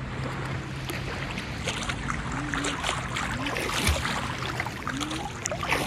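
Sea water splashing and sloshing right at the microphone of a phone held at the surface, as a swimmer makes one-armed front crawl strokes; irregular small splashes throughout.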